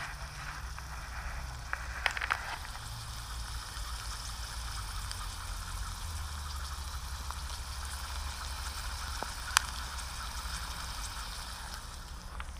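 Pot of diced potatoes in water just coming to a simmer on campfire embers: a steady fizzing hiss, with a few crackles about two seconds in and one sharp pop about three-quarters of the way through.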